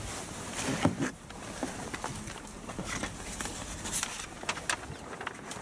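Scattered light clicks and knocks over a steady low background hum.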